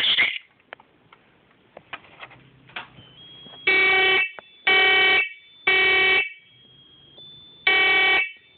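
Smoke alarm sounding on its test button: a short loud burst at the start and a few small clicks, then from about three and a half seconds in the temporal-three evacuation pattern. Three long beeps about a second apart, a pause, and the next round of beeps begins.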